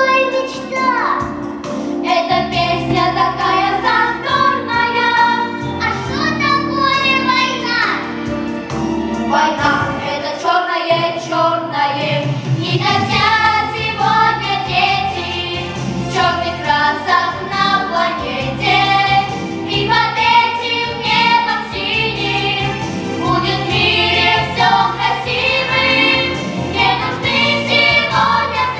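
Children's vocal ensemble singing a song together into microphones, over an instrumental accompaniment with a steady bass line.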